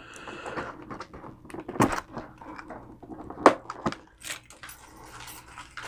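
A key scraping along the seam of a cardboard box, slitting its clear tape seal, with scattered sharp clicks and crackles of the tape and packaging.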